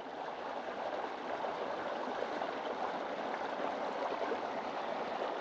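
Steady, even outdoor background rush by open water, with no distinct events.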